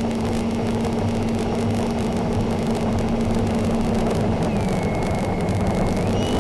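Model jet's motor running with a steady whine over loud rushing air noise. About four and a half seconds in, the low whine gives way to a higher one, which steps up in pitch near the end.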